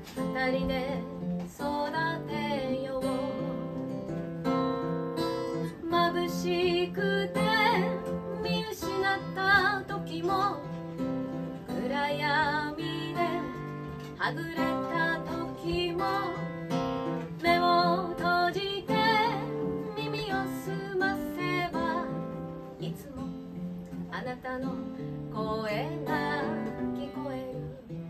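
Acoustic guitar strummed and picked under a woman's singing voice in a live folk song, sung with vibrato.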